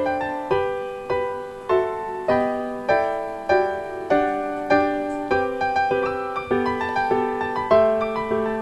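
Background piano music: a steady, unhurried run of struck notes and chords, each ringing and fading before the next, about one every half second.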